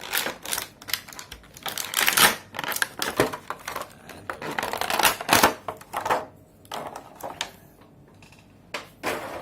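Stiff plastic toy packaging crackling and clicking as it is prised open: an irregular run of sharp crackles, dense at first and thinning out toward the end.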